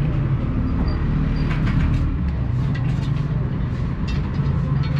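Street traffic, with the steady low rumble of a large vehicle's engine running and scattered light clicks and knocks over it.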